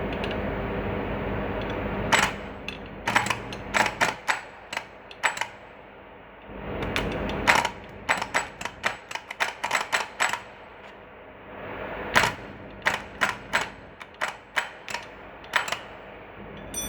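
Car starter clicking in three runs of sharp, irregular clicks without cranking the engine: the sign of a faulty starter. A steady noise with a faint hum fills the gaps between the runs.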